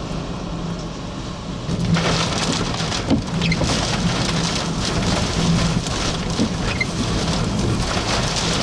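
Severe windstorm: strong wind rushing with a steady hiss that grows louder about two seconds in, over a low rumble.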